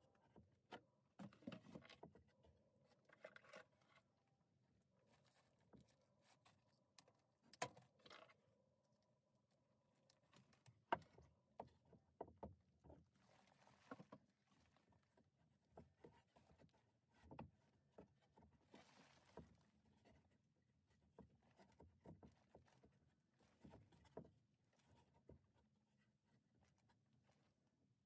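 Quiet, scattered knocks, taps and scrapes of wooden bins being handled and set onto an overhead wooden shelf, with one sharper knock about eleven seconds in and a few brief rustles.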